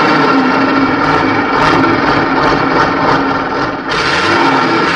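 Large, bare V12 diesel engine running loudly and steadily, freshly started and pouring out black exhaust smoke.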